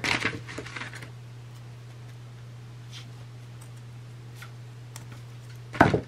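Scissors cutting a strip of feather trim: a couple of faint snips, then one sharp snip near the end. A steady low hum runs underneath.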